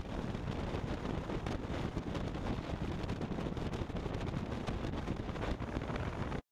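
Steady wind rush and road noise on a camera mounted on a bass boat towed at highway speed. It cuts off abruptly near the end.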